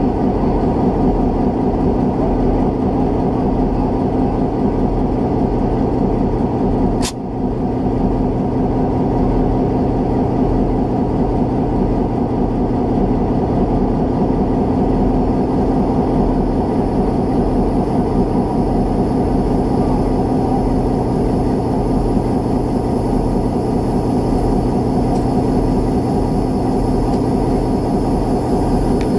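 Diesel locomotive engine idling steadily, with one sharp click about seven seconds in.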